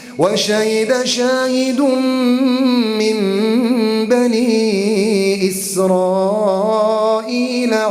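A man chanting Quran recitation in a melodic tajweed style, drawing out long, ornamented notes that waver in pitch, after a quick breath at the start.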